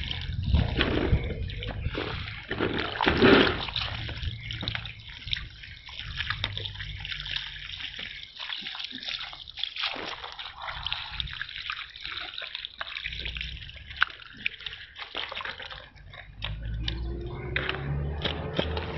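Water from a hose pouring and splashing over a large scaled fish as it is rinsed and rubbed by gloved hands, with scattered sharp clicks and knocks.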